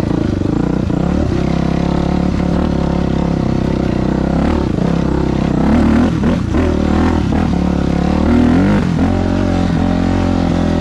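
2000 Yamaha YZ426F dirt bike's four-stroke single-cylinder engine running under way, revving up briefly about six seconds in and again about eight seconds in.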